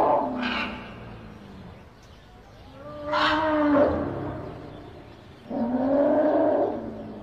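Elephant calling loudly twice, each call about a second long, the first about three seconds in and the second about five and a half seconds in; the tail of an earlier call fades out at the start.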